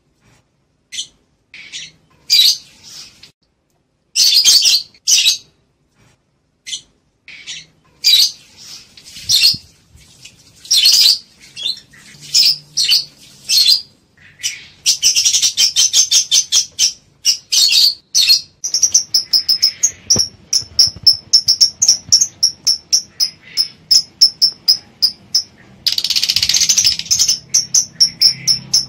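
Lovebirds chirping, the calls of birds in breeding condition ready to mate. Sharp, high chirps come in scattered bursts at first, then about halfway in turn into a fast, even run of short chirps, three or four a second, with a louder harsh burst near the end.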